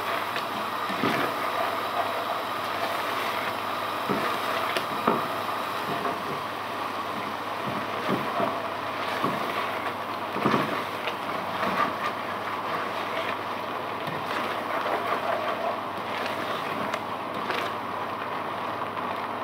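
A silicone spatula scraping and knocking against a non-stick pot as a thick curry masala is stirred, in irregular strokes about every second, over a steady background hiss.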